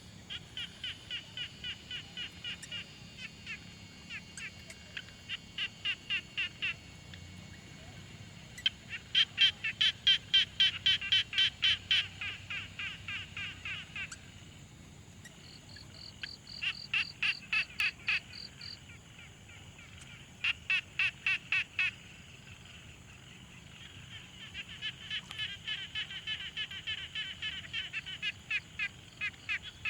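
A chorus of frogs calling at a pond, in overlapping trains of pulsed croaks at about four pulses a second, each train lasting a few seconds with short pauses between. A faster, higher-pitched pulsed trill joins for a few seconds near the middle.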